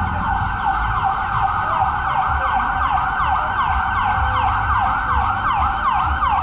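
Ambulance siren in fast yelp mode, its pitch sweeping over and over at about three sweeps a second.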